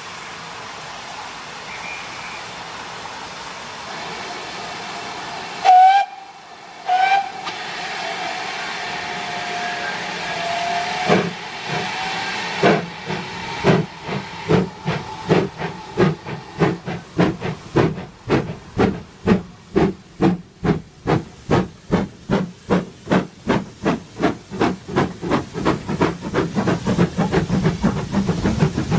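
Two GWR steam locomotives, 9351 and 7828, double-heading a train: a steady hiss, then two short whistle blasts about six and seven seconds in and a longer whistle note. They then start away, their exhaust beats slow at first and quickening to about four a second.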